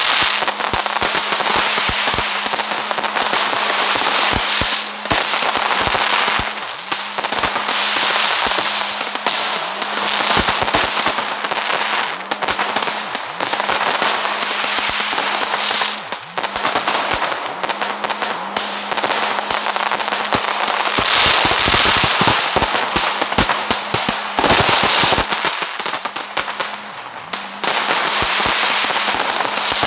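Fireworks crackling continuously: a dense stream of rapid small pops and crackles with short lulls, over a steady low hum.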